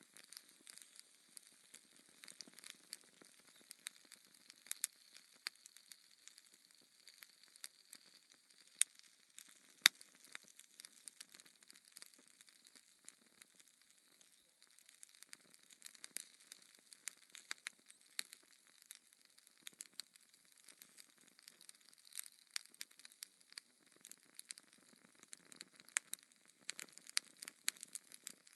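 Burning logs crackling: frequent irregular snaps and pops over a faint steady hiss, with two louder pops about a third of the way in.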